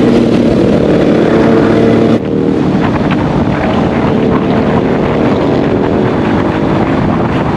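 Motorcycle engine running under way, with wind buffeting the microphone. A steady hum in the first two seconds cuts off abruptly, after which the engine and wind noise carry on a little quieter.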